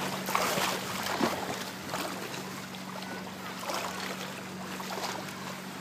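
Water lapping and splashing lightly, with wind noise and a steady low hum underneath.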